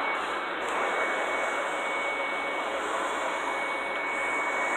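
Steady whooshing fan or blower noise with a thin, constant high whine over it, unchanging throughout.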